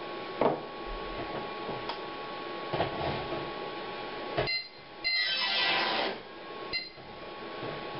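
Small solid-state Tesla coil's sparks buzzing out a few short musical notes, played on a keyboard through a MIDI interrupter, starting about four and a half seconds in with a longer note around the sixth second. Before that, a steady hum and a few soft knocks.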